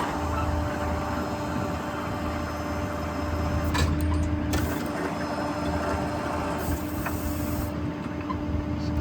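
Hydraulic service-truck crane being worked, with a steady low drone and a constant whine from the running machinery, and a few faint clicks.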